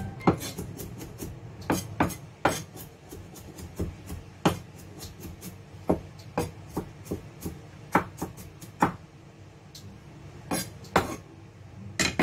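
Chinese cleaver chopping garlic on a round wooden chopping board: irregular knocks of the blade on the wood, sometimes several a second, with a few much louder chops among them.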